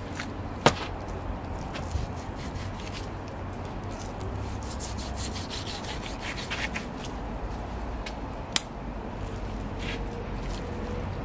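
Cooked lamb being worked off the bone: steady rubbing and scraping, with two sharp knocks, one about a second in and one near the end.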